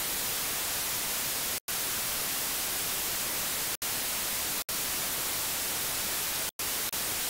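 TV static sound effect: a steady, even hiss that cuts out for an instant four times.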